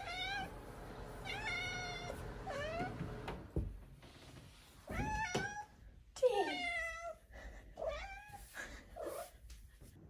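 Maine Coon kitten meowing repeatedly, about seven short rising-and-falling meows with gaps between them. She is begging for her food.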